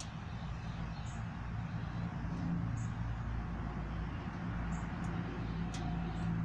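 First-generation Ford F-150 SVT Lightning rolling slowly with its V8 running, and a brief high-pitched chirp about every two seconds from the right front disc brake.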